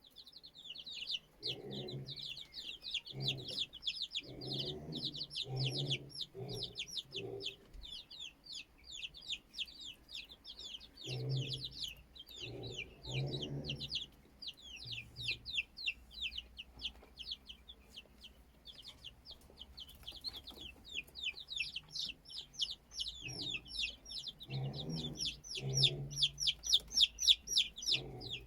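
Chicks peeping rapidly and continuously in high, short falling notes, with a hen clucking low in several bursts of clucks.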